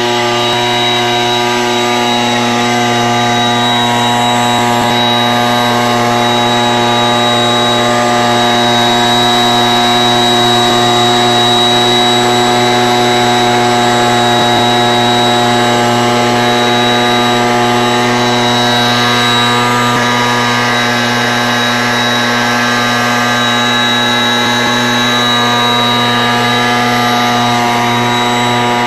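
Backpack mist blower's 82.4 cc two-stroke engine (KK-MDS-20L) running steadily at full speed, around 7000 rpm, with the rushing air blast from its spray pipe. The engine pitch holds constant throughout.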